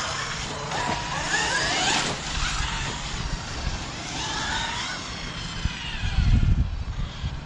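Losi Super Baja Rey RC trucks' brushless electric motors and drivetrains whining, the pitch rising and falling as they speed up and slow down. From about six seconds in, a louder, gusty low rumble.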